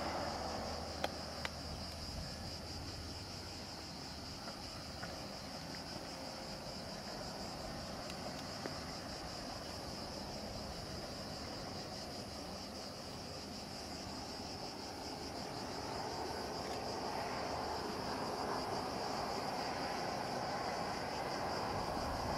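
Steady chorus of cicadas, with the low rumble of a distant diesel-hauled freight train growing louder over the second half.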